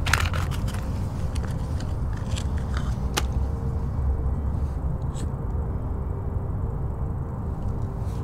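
Steady low outdoor rumble, with a run of small clicks and scrapes in the first three seconds and one sharp click about three seconds in.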